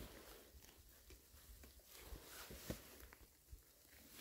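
Near silence with faint, scattered small ticks and rustles.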